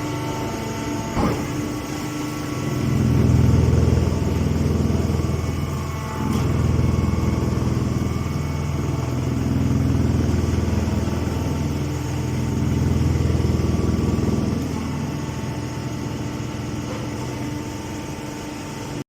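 Engine-driven hay and straw baler running, its low machine sound swelling and easing every three seconds or so as it works, with a short click about a second in.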